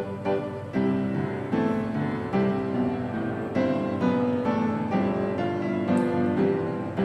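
Background instrumental music with a piano melody.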